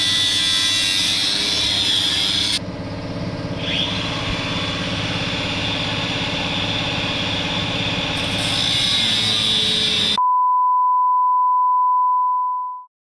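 Loud, steady shop machinery noise with a low hum and a hissing edge, its sound shifting about two and a half seconds in. About ten seconds in it cuts off into a steady, pure beep tone that lasts a few seconds and then stops abruptly.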